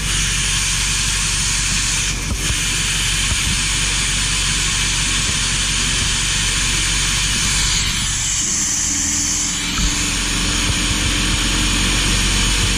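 Air forced into an aerobic septic tank's aeration line to blow out the clogged pipe: a steady motor hum under a loud rush of air, with a sharper high hiss for about two seconds around eight seconds in.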